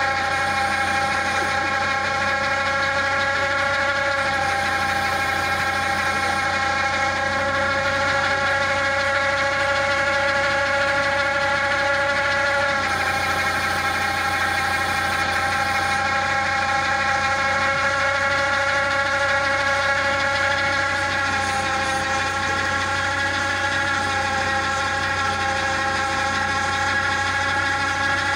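Massey Ferguson 9500 tractor running steadily under load, driving the hydraulic auger of a tractor-mounted piling machine as it bores into soil, with a steady whine; the pitch shifts slightly about halfway through.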